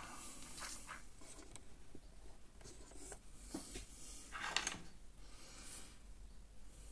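Faint rubbing and scraping handling noises as the overhead camera mount is adjusted: a few short scrapes, the loudest about four and a half seconds in.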